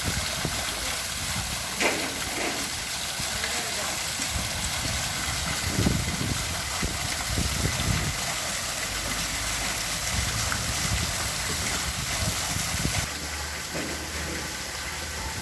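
Water from a garden waterfall pouring steadily, making a constant rushing noise.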